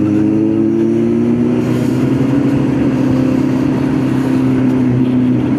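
Kawasaki Z900's inline-four engine running under way, its revs easing down slowly and evenly, with wind noise underneath.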